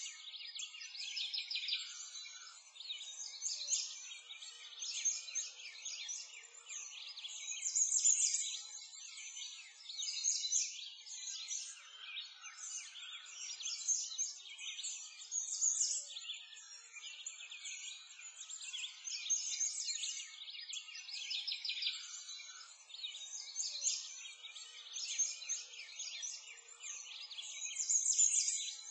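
A dense chorus of small songbirds chirping and singing as a continuous background ambience, all high-pitched with no low sounds beneath it.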